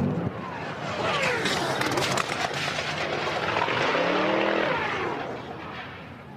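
Top Fuel dragster crashing: a loud rush of noise with sudden clattering impacts as the car flips and tumbles down the track, and a rising-and-falling whine about four seconds in. The noise dies down near the end.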